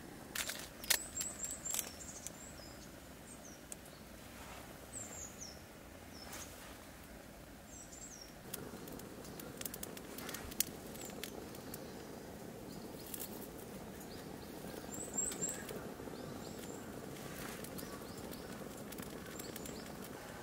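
Small birds chirping: short high calls that drop in pitch, several in quick clusters about a second in and again around fifteen seconds, with scattered light clicks and taps over a steady low background rush.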